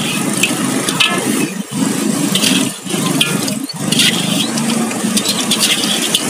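A metal ladle scooping and scraping green mussels in Padang sauce around an aluminium wok, with a few short clinks, over a steady low rumble.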